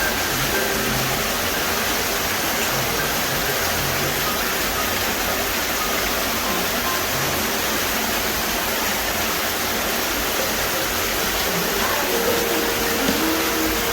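Steady rushing of a waterfall, with faint soft music notes over it that grow plainer near the end.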